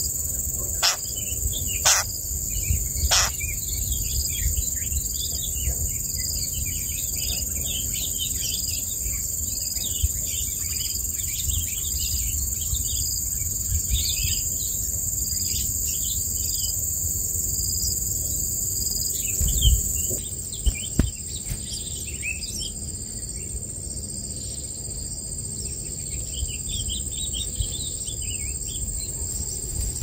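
Baby birds in a nest chirping in quick, short calls, over a steady high drone of insects. A few sharp clicks come in the first few seconds.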